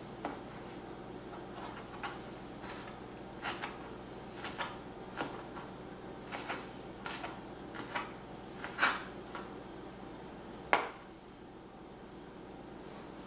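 Chef's knife dicing raw pork on a plastic cutting board: irregular knocks of the blade meeting the board, one or two a second, with two louder chops past the middle.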